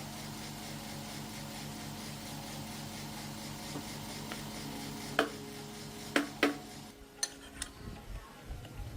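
A workshop machine running with a steady hum that pulses about five times a second, cutting out about seven seconds in. Several sharp metallic clinks sound near the end, the loudest just after five seconds and twice around six seconds.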